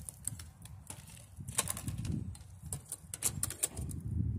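Irregular sharp clicks and knocks of a hand tool prying and tapping at a plastic electric-fan housing to free the motor, over a low rumble that swells about halfway through and again near the end.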